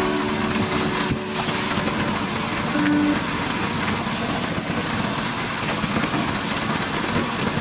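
Bathtub faucet running, a steady stream of water pouring into a nearly full tub.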